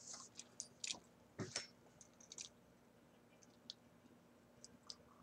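Near silence with a few faint, scattered clicks and small mouth sounds of a man sipping from a stemmed wine glass.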